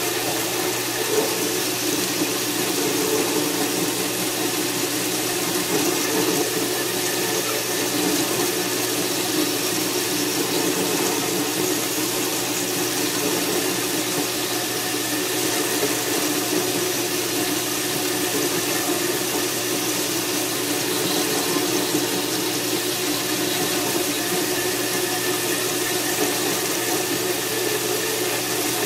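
An electric machine running steadily, a constant hum with an airy rush over it.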